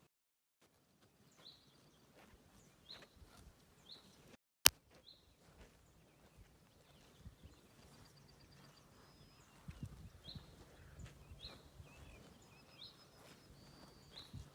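Cows grazing: irregular soft rips and crunches of grass being torn and chewed, with small birds chirping repeatedly in the background. There is a single sharp click about four and a half seconds in, and low rumbling, snuffling noise grows near the end.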